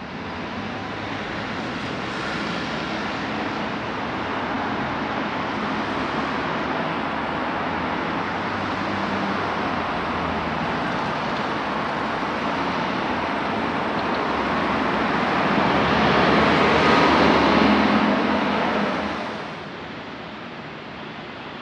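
Steady rushing road traffic noise. It swells louder for a few seconds near the end and then eases back.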